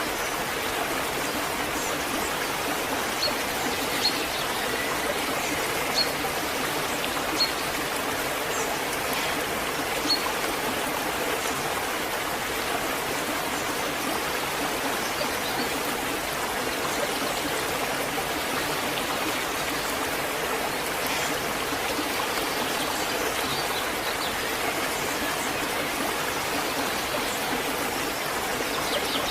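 Waterfall: water falling and running steadily with an even rushing hiss, plus a few brief high blips in the first ten seconds.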